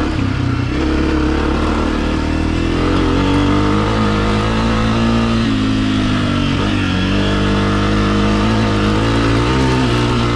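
Honda CRF250F dirt bike's single-cylinder four-stroke engine running under way on a trail, its note rising and falling as the throttle is worked.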